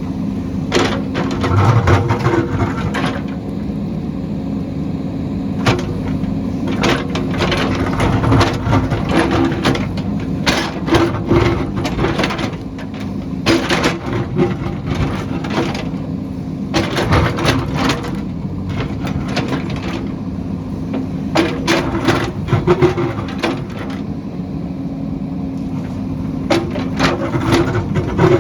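JCB backhoe loader's diesel engine running steadily while the machine digs, with frequent sharp knocks, cracks and clatter of the bucket striking and scraping rock and soil.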